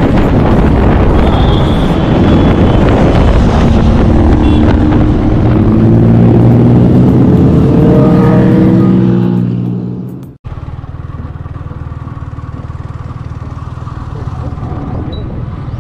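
Motorcycle engine and wind noise while riding. The engine note rises as it accelerates over the first ten seconds or so. After an abrupt cut, a quieter, steady engine runs at low speed.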